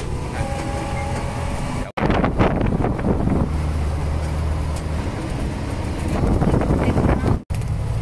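Engine running and road noise inside an open-sided tuk-tuk on the move: a steady low drone with wind and road rush. The sound cuts off abruptly twice.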